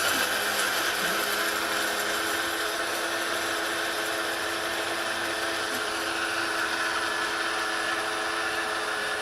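Chulux electric blade coffee grinder running steadily with its coarse-grind cup fitted, grinding dried cooked pork; an even motor whine over a constant whirr.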